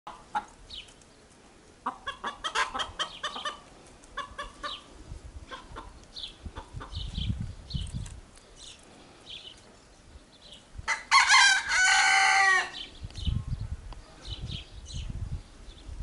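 Short runs of chicken clucks, then a rooster crows once about eleven seconds in: a single cock-a-doodle-doo lasting under two seconds, the loudest sound here.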